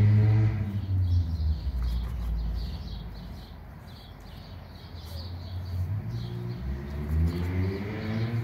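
A car drives past, its engine note sliding down in pitch and fading over the first second or so; a few seconds later another vehicle approaches, growing louder and higher toward the end. Small birds chirp steadily throughout.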